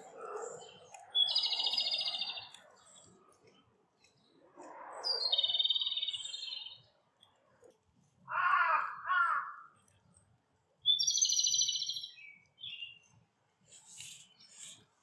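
Wild birds singing and calling: a high, rapidly trilled phrase sounds three times, and two shorter, lower calls come just past the middle.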